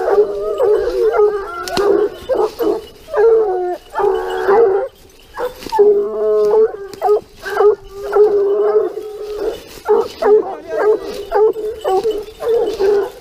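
Pack of Gascon Saintongeois hounds giving tongue on a wild boar's scent line: many voices baying and howling over one another in a near-continuous chorus, with one short lull about five seconds in.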